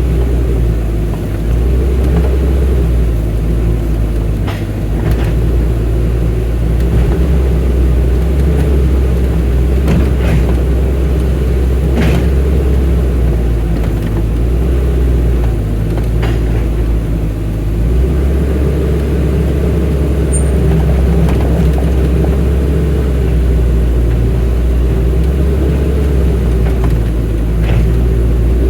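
Excavator's diesel engine running steadily under work, its note shifting about two-thirds of the way through, with several sharp metallic knocks scattered throughout.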